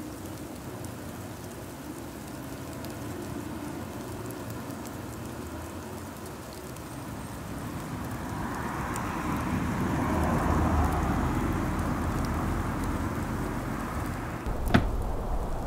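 Rain ambience, a steady patter that swells louder in the middle with a low rumble building underneath. A single sharp crack comes near the end.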